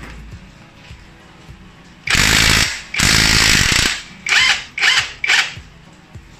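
Cordless impact driver hammering on the engine-mount through-bolt nut of a scooter, loosening it. It runs in two long bursts about two and three seconds in, then three short bursts.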